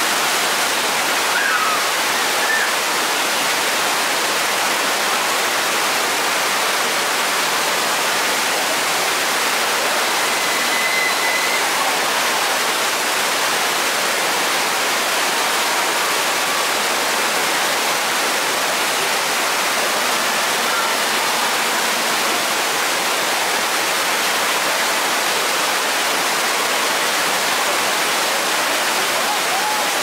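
Steady rush of white water churning through a river rapids ride channel.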